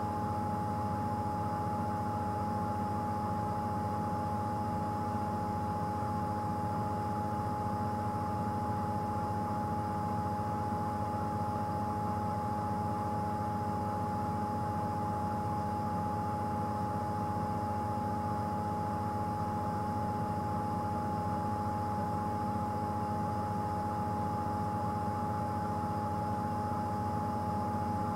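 Steady rushing of a waterfall, with a thin steady whine over it.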